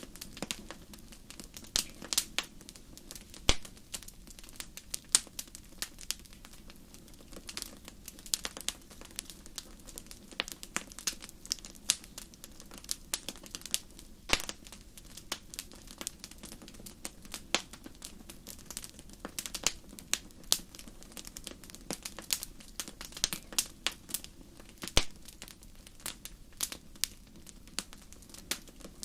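Wood campfire crackling: irregular sharp pops and snaps of burning logs over a soft, steady low rush of the flames.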